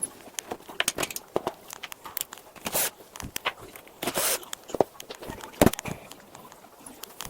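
Handling noise from work on a treadmill during a running-belt replacement: scattered clicks and knocks, with two short scraping or rubbing rushes, one just under three seconds in and a longer one about four seconds in.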